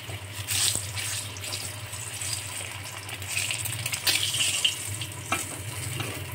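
Whole boiled eggs sizzling in a little hot mustard oil in a kadai, a steady frying hiss. A steel ladle scrapes and knocks against the pan a few times as the eggs are scooped out.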